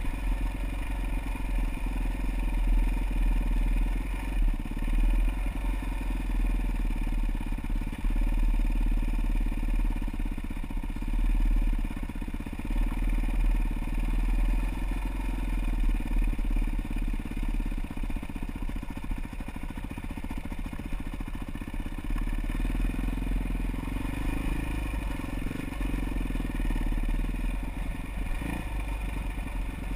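Off-road motorcycle engine running steadily at low trail speed, with the bike rattling and knocking over rough ground.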